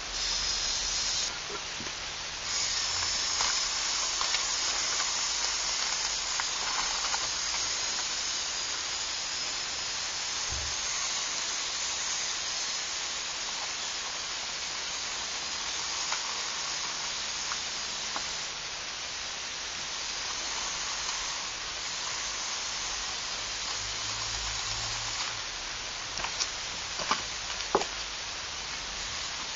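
Electric motors and plastic gears of a LEGO Technic off-road model whirring in a steady hiss as it crawls. The pitch of the whirr shifts now and then, and a few sharp plastic clicks and knocks come near the end.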